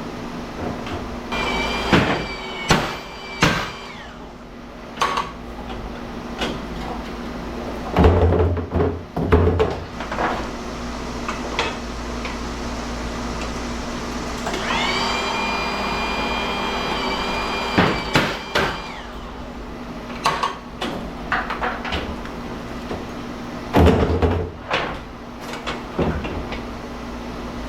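Metal knocks and clanks of scrap lamp transformers being taken apart by hand, with a few heavy thuds. A power tool spins up with a rising whine about halfway through and runs for about three seconds, with a shorter whine near the start, over a steady machine hum.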